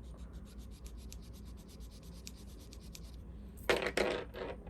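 A chunky link bracelet rubbed back and forth on a jewelry-testing touchstone to lay a streak of metal for an acid test: quick, even scraping strokes, several a second. A louder scrape or clatter about three and a half seconds in.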